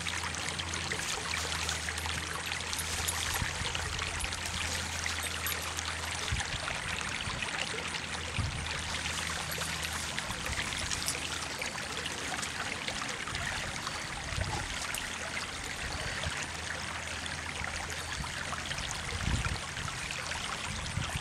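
Small stream trickling and rushing steadily, with a few soft low thumps, the plainest near the end.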